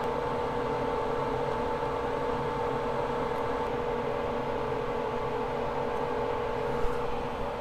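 Steady whirring hum of a workbench fume extractor fan, with a steady pitched tone running through it. A single brief tick about seven seconds in.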